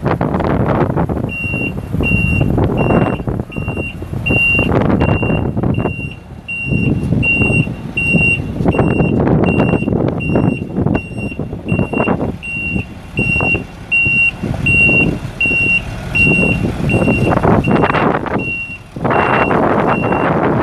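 A backup alarm on a Chevrolet C6500 service truck beeps steadily as the truck backs up, about three beeps every two seconds, starting about a second and a half in. Under it the truck's Caterpillar 3126 six-cylinder turbo diesel runs, with rumbling noise that rises and falls.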